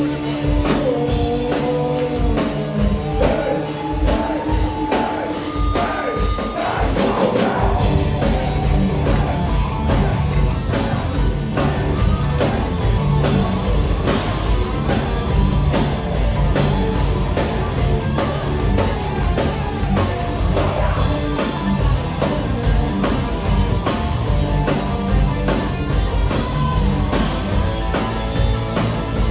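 Rock band playing loud rock music with drum kit and electric guitar to a steady beat. A wavering lead line, voice or guitar, stands out over the first several seconds.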